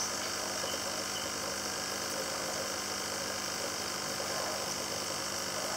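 Steady hum and hiss of the tank's filter pump running.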